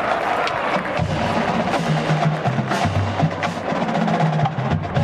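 Marching band drumline playing a cadence: sharp rim clicks and snare strokes, joined about a second in by a line of low, pitched notes from the tuned bass drums.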